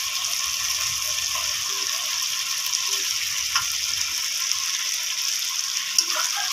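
Masala frying in hot oil in a pan, a steady sizzle, with a few light clicks of a metal spatula against the pan as pieces of fried hilsa are laid in.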